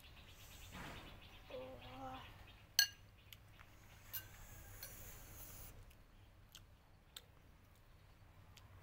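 Metal spoons clinking against a ceramic bowl while eating: one sharp clink about three seconds in, a softer one about a second later, then a few faint ticks.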